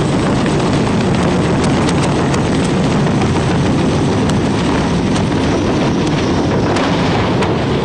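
Loud, steady rumble of a helicopter running, mixed with wind buffeting the microphone, with a few faint clicks.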